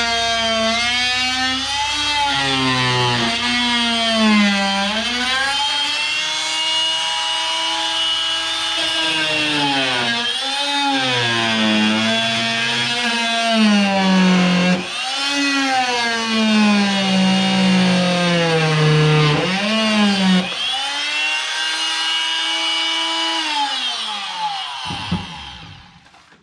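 Oscillating multi-tool cutting holly wood. Its motor whine repeatedly sags in pitch and climbs back, then winds down and stops near the end.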